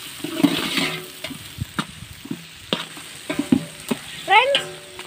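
Sliced onions and green chillies frying and sizzling in a large aluminium pot, stirred with a ladle that knocks against the pot several times. A short voice sounds near the end.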